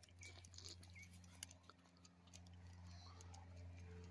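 Faint, steady drone of a distant airplane's engine that slowly grows louder as it approaches. A few short bird chirps are heard in the first second.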